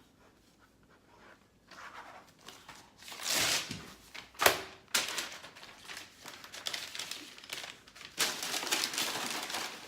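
Crinkling and rustling of a squishy package being handled and packed, in irregular bursts that grow louder near the end.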